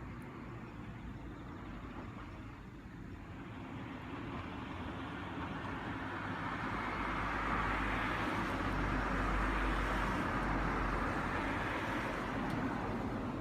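A motor vehicle passing by: a rushing road noise with a low rumble that builds over several seconds, peaks in the middle and fades away near the end.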